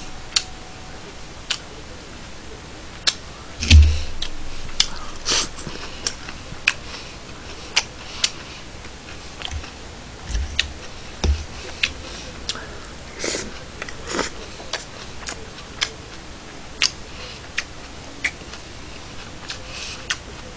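Eating sounds: metal fork and knife clicking and scraping against a ceramic plate in sharp, irregular clicks, with chewing. A dull thump about four seconds in is the loudest sound.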